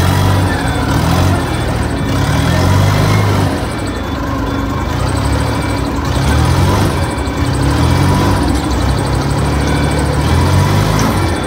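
Engine of a rough-terrain forklift running steadily as the machine is driven slowly off a flatbed truck.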